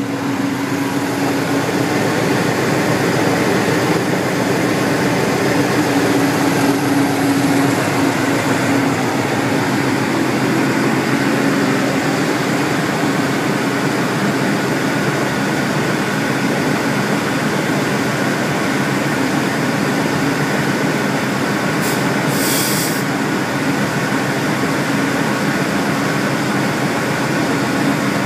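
GE U23B diesel-electric locomotive's 12-cylinder GE FDL engine running steadily at throttle notch 6 under self load, heard inside the cab, with a steady hum under the loud mechanical noise. A short hiss about three-quarters of the way through.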